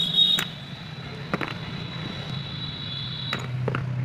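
Light metallic clicks and taps as the steel rotor and parts of a pneumatic air gun's air motor are handled and fitted together. They sit over a steady low hum and a high whine that stops about three seconds in.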